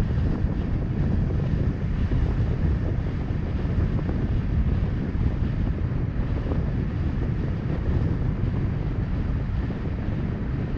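Wind rumbling on the microphone of a camera mounted on a moving car, a steady, gusty low noise, with the car's road and tyre noise beneath it.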